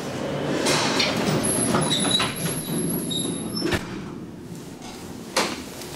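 Doors of a 1967 Flohr-Otis traction elevator sliding shut: a mechanical rumble with a faint high squeal for about three seconds, then a sharp click. A single thump follows near the end.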